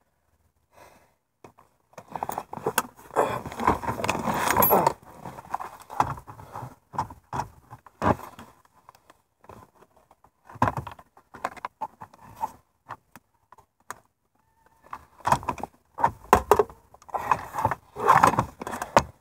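Car stereo head unit and dashboard parts being handled in a center console: irregular plastic and metal clatter, rattling and scraping, in bursts with short pauses between.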